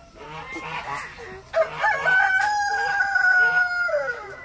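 A rooster crowing once, about a second and a half in, ending in a long held note that falls away near the end.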